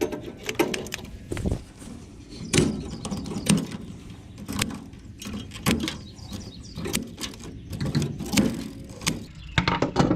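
Irregular sharp clicks and metal clanks, spaced unevenly through the whole stretch: wires being cut and metal parts handled while an air-conditioner unit is stripped for scrap.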